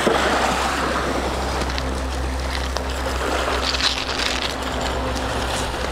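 Steady noise of sea waves and wind at the shoreline, with a constant low rumble underneath.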